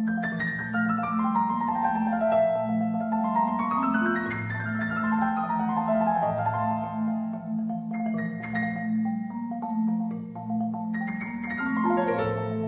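Concert marimba and Steinway grand piano playing together: quick runs of notes sweep down and back up over low notes repeated steadily underneath.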